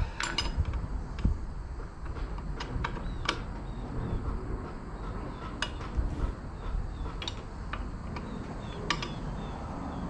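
A wrench working a nut on a sawmill's chain-and-sprocket bracket: irregular metallic clinks and ticks, about one a second, of steel tapping on steel, over a low steady rumble.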